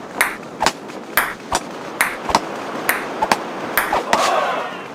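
A quick series of sharp clicks or taps, roughly two a second, over a steady hiss.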